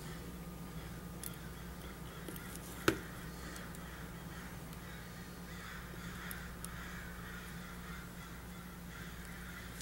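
A single sharp click about three seconds in as steel tweezers touch the Omega calibre 600 watch movement, with a few fainter tool ticks, over a steady low hum. Faint bird calls come in during the second half.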